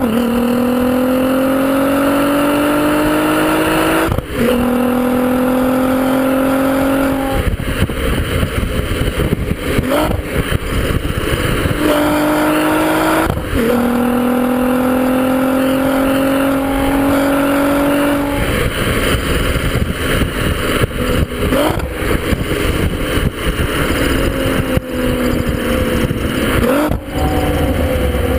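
VW Golf V R32's 3.2-litre VR6 heard from its quad-tip exhaust under way: the engine note climbs in pitch under acceleration several times, cut by short breaks at gear changes, with rougher stretches off the throttle in between.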